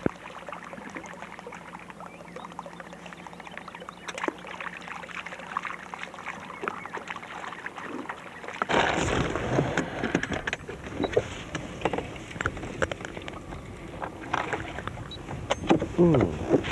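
Open-air noise on a bass boat: a low hiss of wind and water with scattered knocks and clicks. It turns louder and busier about halfway through.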